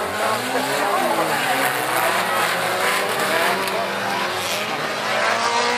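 Several old race cars' engines revving at once, their pitches rising and falling and crossing one another as the cars accelerate and lift around the track.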